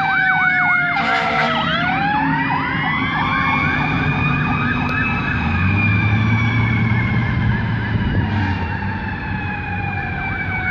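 Pierce Velocity ladder truck responding with its sirens: an electronic siren yelps rapidly while a Q-style siren tone sinks, winds back up over about three seconds and then slowly winds down. A short horn blast sounds about a second in.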